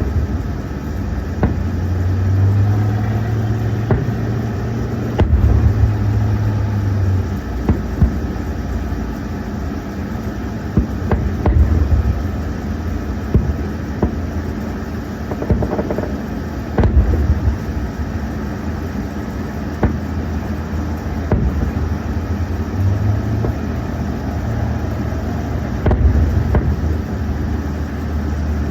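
Distant fireworks: a steady low rumble broken by irregular booms and pops every few seconds.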